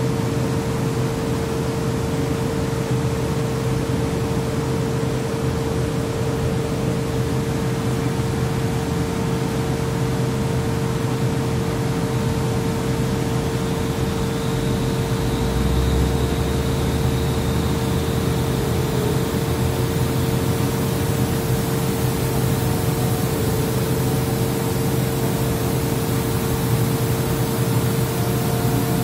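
Atlas Copco variable-speed-drive air compressor running steadily: an even whirring noise with a constant tone, and a deeper hum joining about halfway through.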